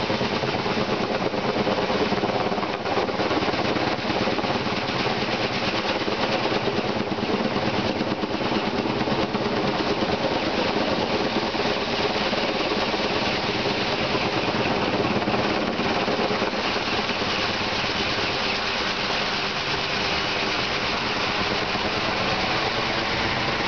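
Kaman K-MAX K-1200 helicopter flying low overhead: the fast, steady chop of its intermeshing twin rotors over the whine of its turboshaft engine, holding an even level throughout.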